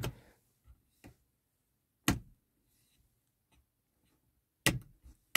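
Interior light switches of a 1998 Audi A6 C5 clicked by hand in the car's cabin: sharp single clicks, one about two seconds in and another near the end, with quiet between.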